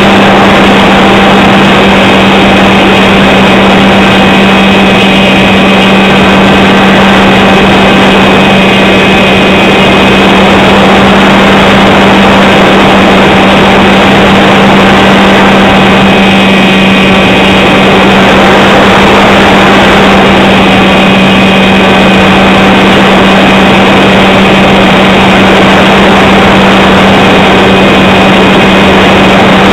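Electric motor and propeller of an FPV model aircraft, picked up by its onboard wing camera: a loud, steady drone with a strong low hum at an unchanging pitch over a constant rush of air noise.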